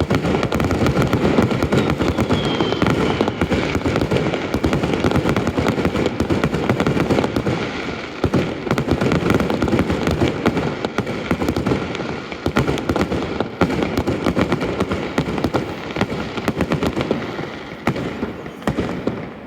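Aerial fireworks going off in a dense, continuous barrage of bangs and crackling, easing off near the end.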